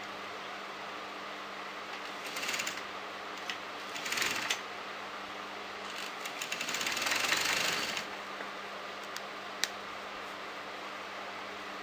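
Sewing machine stitching in short runs, a back-stitched seam along a kameez neckline: two brief bursts about two and four seconds in, then a longer run of about two seconds in the middle, over a steady low hum. A couple of sharp clicks come near the end.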